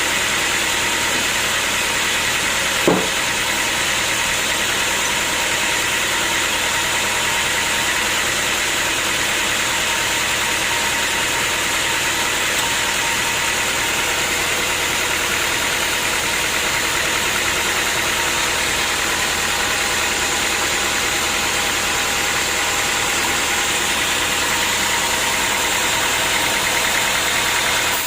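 Sawmill machinery running steadily, with one brief louder sound about three seconds in.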